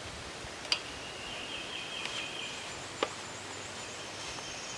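Outdoor background with a high, buzzy trill repeating in the distance, and two short sharp clicks, one about a second in and one about three seconds in.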